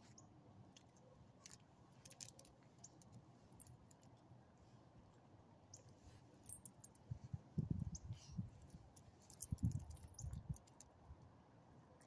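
Faint scattered clicks and light metallic jingling from a dog's metal collar tags as the dog moves about sniffing the ground. Two short stretches of low rumbling come in the second half and are the loudest sounds.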